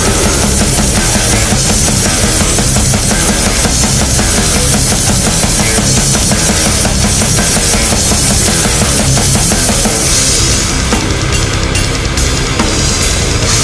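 Death doom metal recording, loud and dense, with heavy distorted guitars and a pounding drum kit. About ten seconds in the playing shifts and separate cymbal hits stand out.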